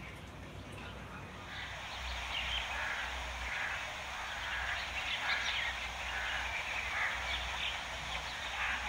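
Birds calling in irregular bursts, starting about a second and a half in, over a low steady hum.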